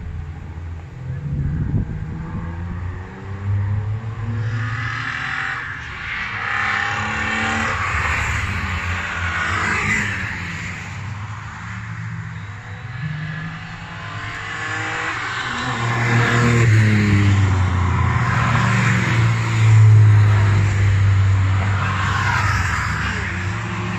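Classic cars passing at speed on a race track, their engines revving with the pitch sliding down as each goes by. Two louder passes come, one about ten seconds in and a longer, louder one in the last third.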